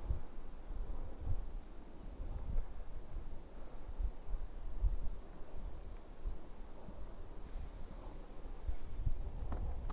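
Crickets chirping faintly in an even, repeating rhythm, about two chirps a second, over irregular low rumbling and bumps on the microphone.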